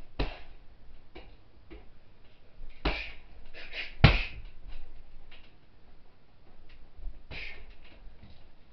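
Wrapped fists punching a hanging heavy bag: four hard thuds and several lighter hits, the hardest about four seconds in.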